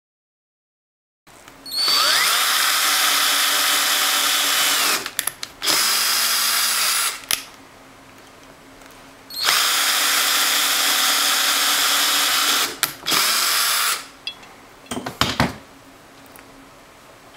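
Power drill running in several bursts of a few seconds each, spinning up in pitch at the start of each, with short blips of the trigger between them.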